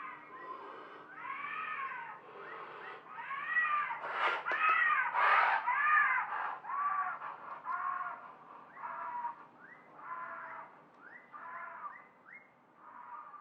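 Made-up pterosaur (Quetzalcoatlus) call, blended from warped goose honks and bird screeches: a run of wailing honks, each rising and falling in pitch, about one a second, loudest in the middle and fading toward the end. A brief sharp noise comes about four seconds in.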